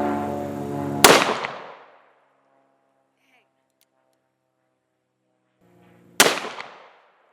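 Two heavy revolver shots from a Smith & Wesson Model 500 firing .500 S&W Magnum, about five seconds apart, each a single sharp crack that rings off for under a second. Background music plays before each shot and cuts off at it.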